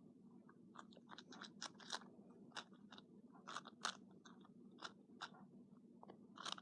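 Faint, irregular plastic clicking of a 2x2 DaYan speed cube being turned by hand, about two to three turns a second, over a low steady hum.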